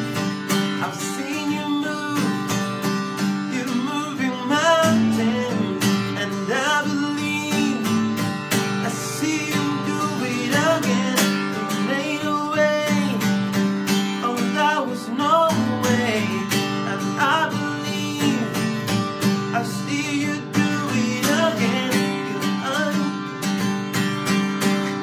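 Acoustic guitar strummed steadily while a man sings a slow melody over it.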